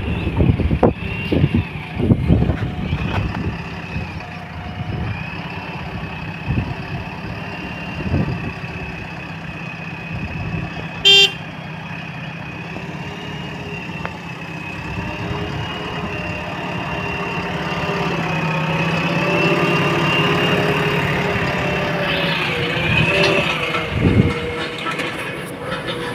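JCB backhoe loader's diesel engine running steadily with a high whine over it, growing louder about two-thirds of the way through. A short horn toot sounds about eleven seconds in.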